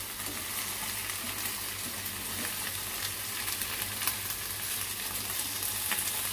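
Oil sizzling steadily around banana-leaf-wrapped bhetki fish parcels (paturi) shallow-frying in a pan, the second side now cooking. A few light clicks of steel tongs against the pan come as the parcels are turned.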